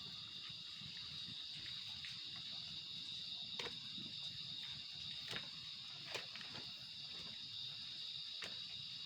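Steady chorus of night insects, a continuous high trilling, with a few sharp clicks scattered through it, the strongest about three and a half, five and six seconds in.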